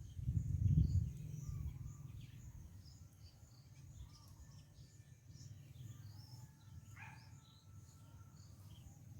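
Birds chirping faintly, with short high calls scattered throughout and a quick falling call about seven seconds in, over a steady low rumble that swells in the first second.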